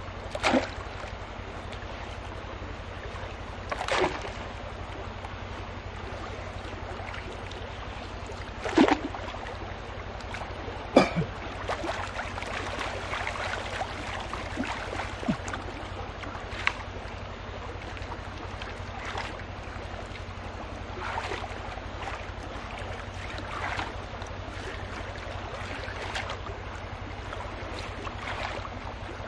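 Water sloshing and splashing as a gold pan full of gravel is swirled and dipped in shallow muddy water and stones are scooped out by hand. Sharper splashes come near the start and about four, nine and eleven seconds in, over a steady low hum.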